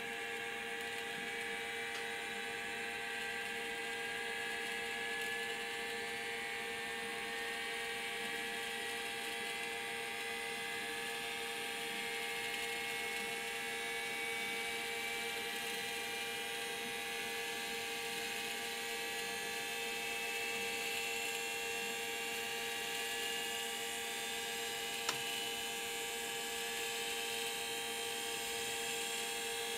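Model 314 vertical gyroscope from a Boeing 737 spinning up after power-on: a whine rising slowly and steadily in pitch as the gyro rotor gains speed, over a steady hum. A single short click about 25 seconds in.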